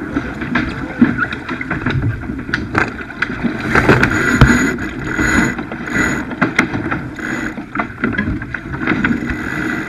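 Wind buffeting the microphone and water rushing along the hull of a Farr 280 racing sailboat under way. Scattered clicks and knocks come from deck gear and rigging as the crew handles the sails, with a few short whirring bursts in the middle.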